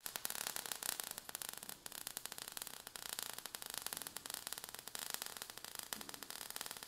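Faint, steady crackling hiss of a sparks sound effect, with many tiny irregular crackles.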